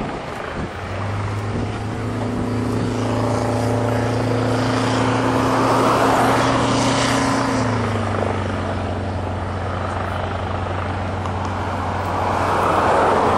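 Diesel engine of an airport crash-rescue fire truck running steadily as it drives along the runway, its note dropping in pitch about eight seconds in, over a steady rushing noise.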